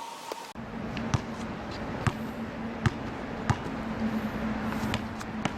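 A basketball bouncing, a handful of separate bounces roughly a second apart, over a steady low hum.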